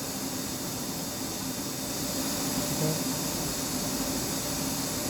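Steady background hiss of a machine shop with a faint low hum under it, while the CNC machine sits idle during program editing.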